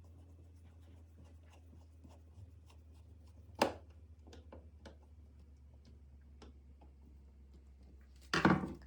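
Faint scraping and small clicks of hand work on a wall switch, with one sharp knock about three and a half seconds in and a louder burst of noise near the end, over a low steady hum.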